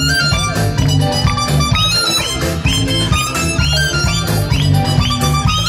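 A live Peruvian cumbia band playing through a PA system: a steady bass and drum beat under a lead melody of short notes that slide upward, repeated about twice a second.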